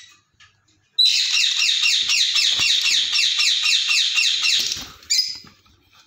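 Lovebird chattering: a loud, fast run of high, rapidly repeated chirps lasting about four seconds, then one short call about five seconds in.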